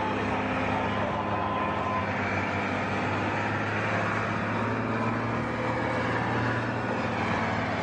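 Engines running steadily: a low, even hum with faint higher tones over a haze of noise.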